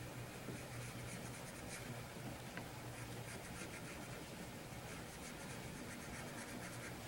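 Pencil drawing on drafting paper: quick scratchy strokes in short runs, with a low steady hum underneath.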